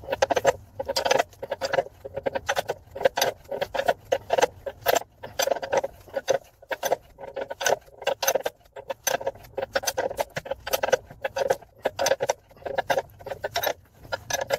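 Socket ratchet clicking in repeated quick bursts as it is swung back and forth on the forcing screw of a ball joint press, pressing a new lower ball joint (rose bush) into a rear suspension arm.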